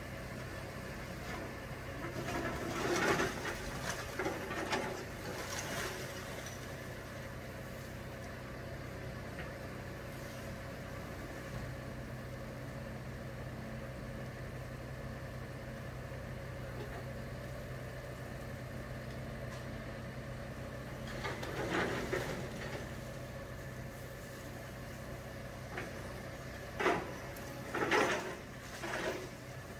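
A New Holland hydraulic excavator's diesel engine running steadily during building demolition. Three louder spells of clatter come through, one a few seconds in, one about two-thirds of the way through and one near the end.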